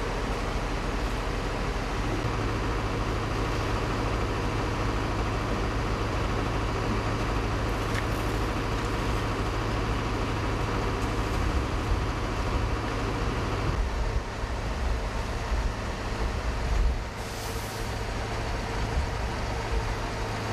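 Heavy vehicle engines running steadily, a low rumble that shifts in character twice.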